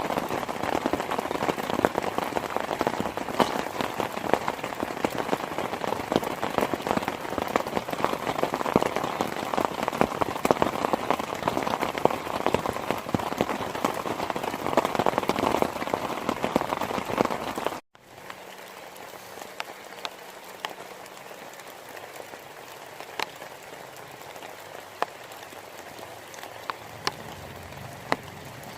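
Heavy rain pelting down in a dense, steady patter. About eighteen seconds in it cuts off sharply to much lighter rain, where separate drops ticking can be heard.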